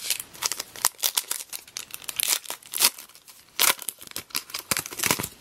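A 2015 Topps Heritage High Number baseball card pack wrapper being torn open and crinkled by hand: a run of sharp, irregular crackles and rips.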